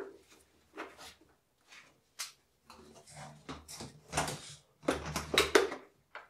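Irregular plastic knocks, scrapes and rustling as a shop-vac hose is handled and pushed onto a 3D-printed ABS dust-collection adapter. The sound is loudest about five seconds in.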